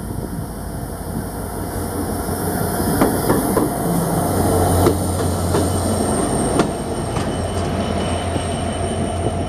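New US-built diesel-electric locomotive 6606 and its passenger coaches passing close by as the train slows into the station. The engine hums low and steady, and the wheels knock over the rail joints several times. A thin, high wheel squeal sets in about halfway and holds.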